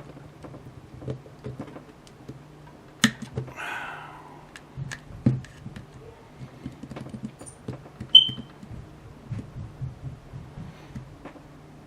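Small clicks and scrapes of tools prying at the clipped plastic shell of an Anker PowerCore 20100 battery pack. About eight seconds in comes a single short, high beep, the low-battery chirp of a smoke alarm.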